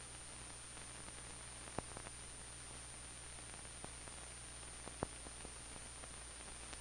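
Soundtrack background noise: steady hiss with a low hum and a faint high steady whine, broken by a few faint clicks, the clearest about two seconds in and about five seconds in.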